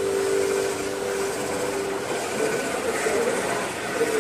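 Front end of a 1998 Ford Explorer as the steering is turned, with a steady whine for about the first two seconds and then an uneven mechanical noise. There is no ball-joint creak: the joints, which had been dry, are freshly greased.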